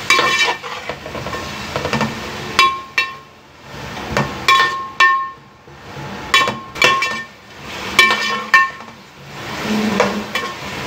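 A metal spoon stirring sliced onions and potato chunks frying in oil in a large metal pan: irregular ringing clinks and knocks as the spoon strikes the pan's sides and rim, over a soft sizzle and scrape.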